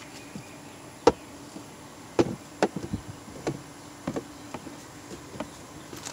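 Seven or so light, irregular knocks and taps, the sharpest about a second in, over a faint steady buzz.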